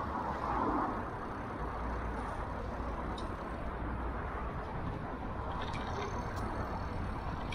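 Steady riding noise from a moving bicycle picked up by an action camera's microphone: wind rush and a low rumble of tyres rolling on asphalt.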